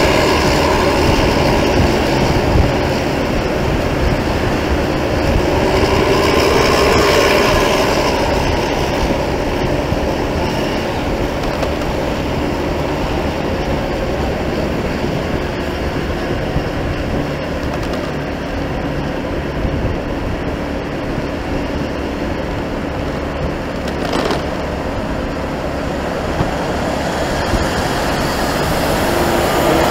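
Steady road and traffic rumble with wind noise, as heard while riding along a busy road.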